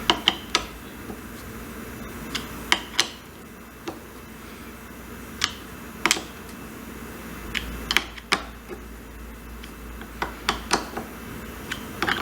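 Small carburetor bolts being tightened by hand with a metal tool: sharp, irregular clicks and taps, often in pairs or small clusters, a second or two apart.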